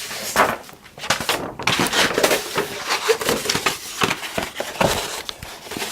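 Paper poster rustling and crackling in dense, irregular crinkles as it is handled and opened out.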